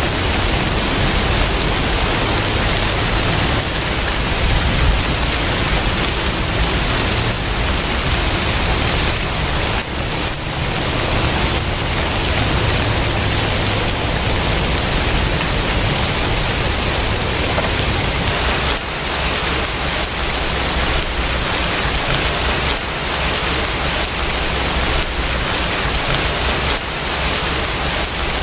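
Steady rain: a dense, even hiss flecked with many small drop hits, over a low rumble that weakens about two-thirds of the way through.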